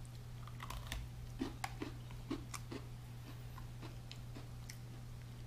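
Faint crunching of an Oreo sandwich cookie being bitten and chewed: a run of small crunches a few tenths of a second apart for about four seconds, over a steady low hum.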